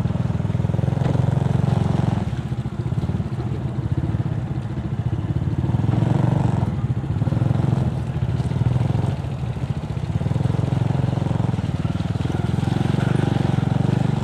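Motorcycle engine running at low speed under the rider, its note swelling and easing every couple of seconds with the throttle.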